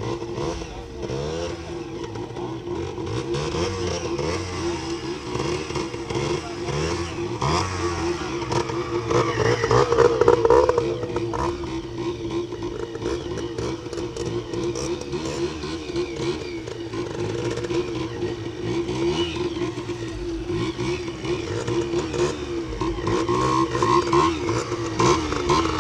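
Motorcycle engine running, its pitch wavering up and down with the throttle and loudest about ten seconds in.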